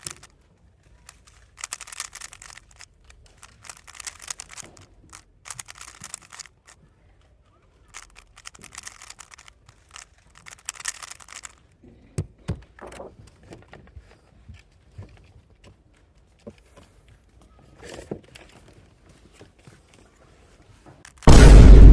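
Speedcube being turned in quick bursts of rapid clicking, with pauses between them. Near the end a loud, deep 'vine boom' sound effect comes in.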